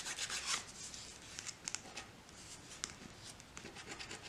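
Faint, scattered scrapes and taps of a coin scratching the silver coating off a paper scratch-off lottery ticket.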